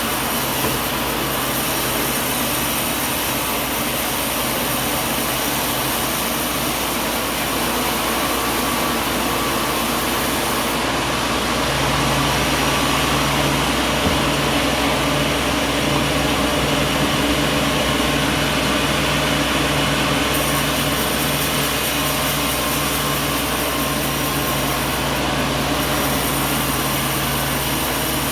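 Sawmill machinery running steadily: a loud, continuous mechanical noise with a low hum whose pitch pattern shifts about twelve seconds in.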